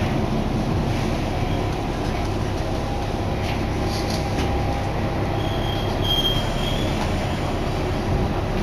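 Steady running rumble heard inside a Kanto Railway Joso Line diesel railcar, with a brief high squeal from the wheels about six seconds in.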